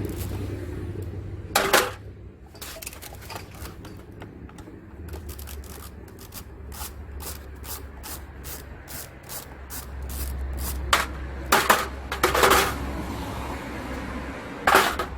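Metal hand-tool work on the 10 mm nuts of a car alternator's rear cover: a long run of quick, light clicks, then several louder metal clanks later on as the cover comes off.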